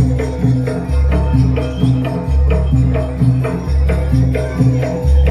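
Jaranan music with drums and gamelan-style metallophones, played loud. A deep low note sounds about every second and a half over a steady run of drum strokes and ringing pitched notes.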